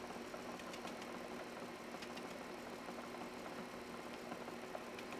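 Film projector running: a steady mechanical hum with faint ticking from its mechanism.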